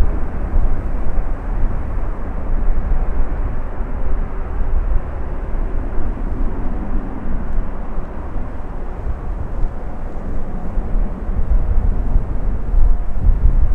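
Jet engine noise of a twin-engine widebody airliner climbing away after takeoff, a steady rumbling haze, with gusts of wind buffeting the microphone.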